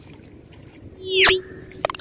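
Sound effects of a subscribe-button animation: a loud whoosh that sweeps upward in pitch about a second in, then a quick double mouse click near the end, over a faint low background hiss.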